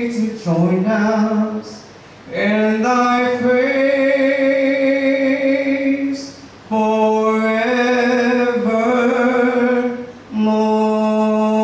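A man's solo singing voice holding long drawn-out notes of a hymn, in phrases of a few seconds with short breaks between them, about two, six and ten seconds in.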